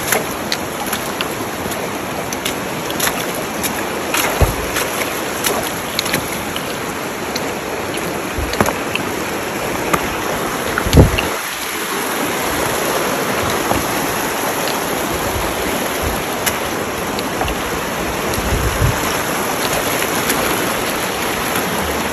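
Shallow creek rushing over rocks in a steady wash of water, with scattered small clicks and a few low thumps, the loudest about halfway through.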